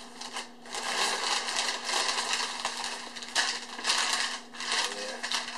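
Crumpled newspaper packing rustling and crinkling in irregular surges as it is pulled out of a cardboard shipping box by hand.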